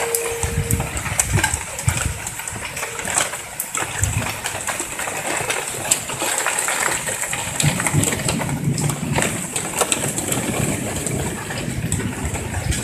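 Heavy rain pouring down with gusting wind, the wind rumbling in surges against the microphone.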